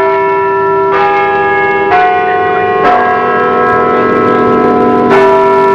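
Bells ringing, a new stroke about every second with the long tones ringing on and overlapping.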